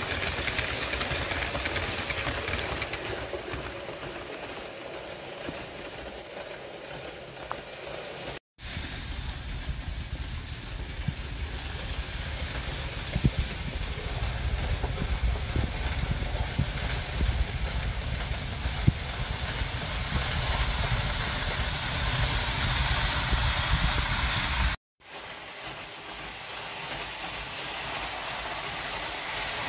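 Model train running on the layout: a Piko Vectron locomotive pulling Intercity coaches, giving a steady rolling rumble and motor whirr with a few sharp clicks from the track. The sound breaks off abruptly twice.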